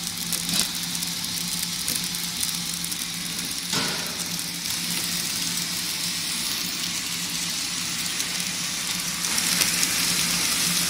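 GETRA spoon-wrapping machine running, packing plastic cutlery in film: a steady mechanical hum with a hiss over it and a couple of sharp clacks, growing louder about nine seconds in.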